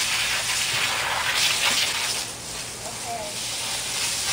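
Garden hose spraying a jet of water across grass: a steady hiss that swells and fades as the stream is moved about.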